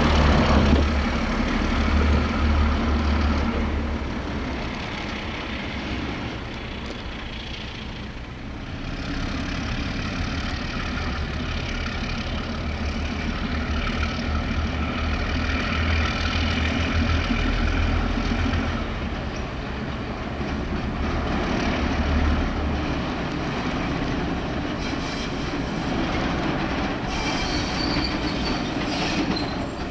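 Diesel yard switcher working with a slug, its engine running steadily under load as it moves freight cars, with wheels squealing on the curved yard track.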